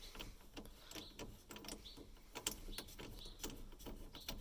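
Ratchet wrench clicking in irregular strokes as it turns the steering shaft nut off a 1967 Dodge Dart's steering column.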